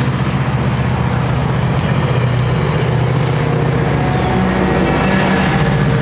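GO Transit bilevel passenger train rolling past with its diesel locomotive drawing near and running under power, a loud, steady low drone.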